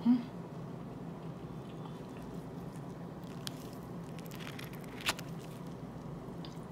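A metal spoon scooping soft, very ripe avocado flesh: faint squishy scraping with a few light clicks, the sharpest about five seconds in, over a steady low hum. A short vocal sound right at the start.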